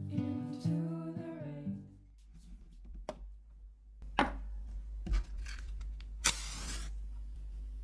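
Acoustic guitar music ends about two seconds in. Then comes quiet handling at a jar candle: two light clicks as its glass lid is set down on the wooden table, and about six seconds in a short scraping hiss of a match being struck, over a steady low hum.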